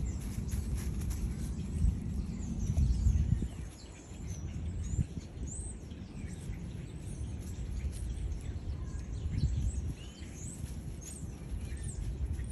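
Small birds chirping over and over, short high calls scattered throughout, over a low outdoor rumble that is heaviest in the first few seconds and then eases.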